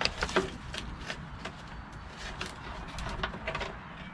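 Scattered light clicks and knocks of small metal parts being handled on an old push lawnmower, several a second, over a low background rumble.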